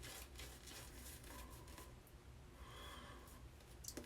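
Faint, short scraping strokes of a Rockwell 2C safety razor across lathered stubble, repeated several times.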